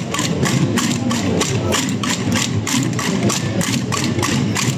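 Massed tamborrada drums beaten in a steady, even rhythm, about four to five strokes a second over a dense drum rumble.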